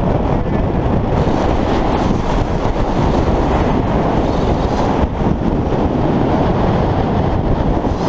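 Strong mountain wind buffeting the camera microphone: a loud, continuous, deep rumble of wind noise.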